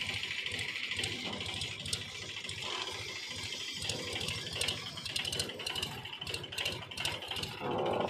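Diesel engine running steadily, its fast low firing pulses with a rattle, under a steady high whine.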